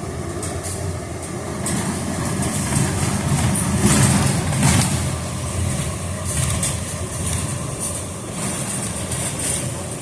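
A large vehicle running with a steady low rumble; it grows louder and noisier about two seconds in, peaking around four to five seconds, then settles.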